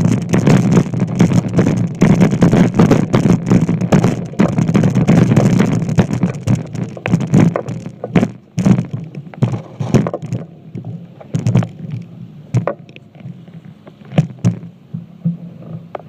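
Small ferry boat's engine running with loud rushing noise. About eight seconds in it eases off, leaving a quieter hum broken by scattered knocks and clicks.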